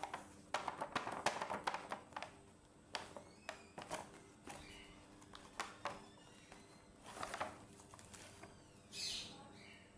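Small plastic toys and packaging being handled: scattered sharp clicks and taps, with short bursts of rustling, the busiest clicking in the first two seconds.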